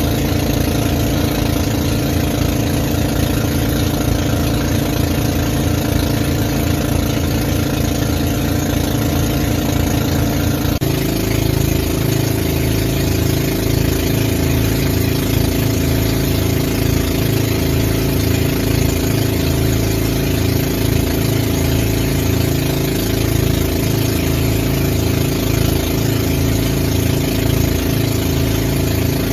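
Outrigger boat's engine running steadily underway. Its note changes abruptly about eleven seconds in.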